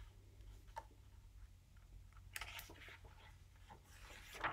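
A picture book's paper page being handled and turned: faint clicks and soft paper rustles, with the loudest rustle near the end as the page flips over.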